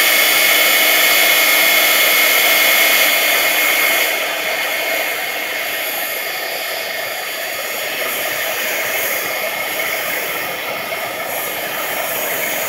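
Handheld embossing heat tool running steadily, its fan blowing hot air with a steady high whine, used to heat an acrylic stamping block and clear the moisture fog from it. It gets a little quieter about four seconds in.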